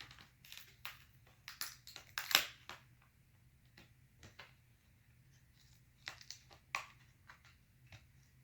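Plastic screen bezel of a Dell Inspiron 15 5567 laptop crackling and clicking as its snap tabs and adhesive are pried loose. Irregular sharp clicks, loudest about two seconds in and again around six to seven seconds.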